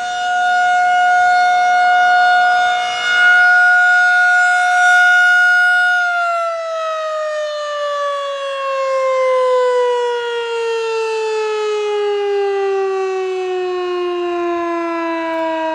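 Federal Signal 2001 electromechanical outdoor warning siren sounding its steady full-alert tone. About six seconds in, the pitch starts to fall smoothly and keeps falling as the siren winds down at the end of the alert.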